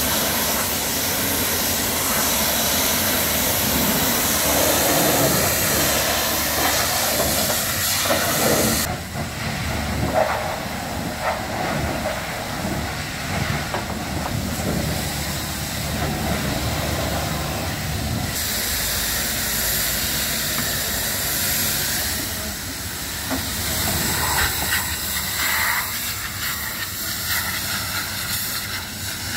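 High-pressure washer spray hitting a truck, a steady loud hiss of water. Its high part drops away for about nine seconds in the middle, leaving duller splashing, then comes back.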